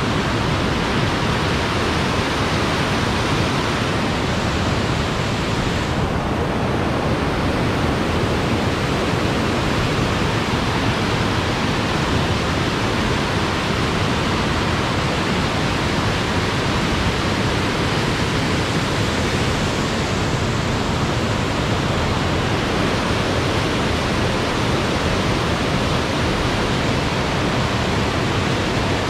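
Rushing water of a stream, a steady unbroken rush.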